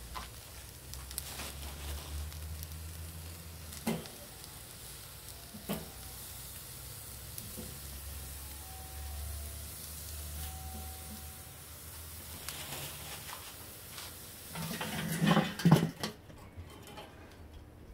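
Burger patties and pineapple slices sizzling on the grate of a Weber kettle grill, with two light knocks as slices are laid down. Near the end the metal lid clatters shut, and the sizzle is muffled after that.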